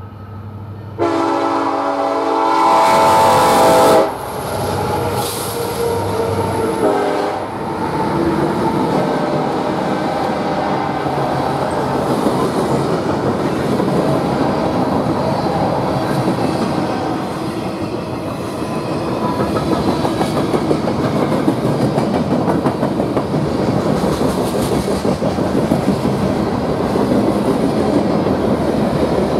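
Freight train at a grade crossing: the lead BNSF locomotive's Nathan K5LLA five-chime air horn sounds about a second in and cuts off suddenly at about four seconds. A steady wheel-on-rail noise follows as the manifest cars roll past.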